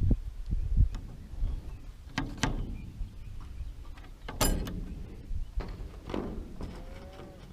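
Irregular knocks and clanks of metal parts and tools being handled during assembly work, with one ringing metal clang about four and a half seconds in and a short squeak near the end.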